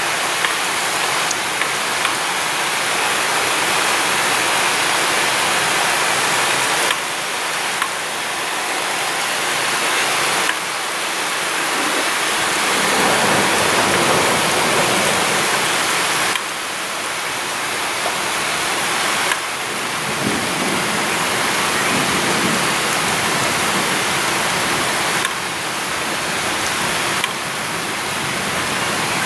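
Heavy rain falling steadily in a dense hiss during a thunderstorm, with a low rumble of thunder swelling about halfway through.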